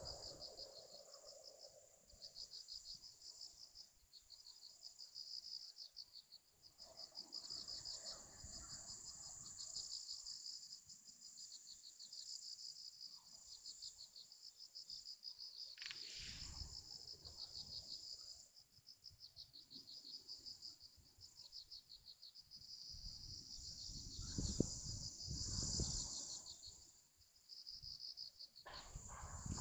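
A chorus of insects chirping in high, rapidly pulsing trains about a second long, one after another. A few low rumbles come through midway and, most strongly, near the end.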